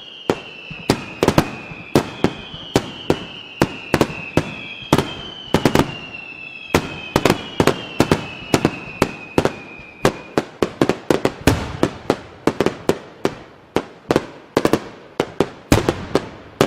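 Fireworks going off in a rapid barrage of sharp bangs, two or three a second. Over the first ten seconds, whistles ride above the bangs, each sinking slightly in pitch.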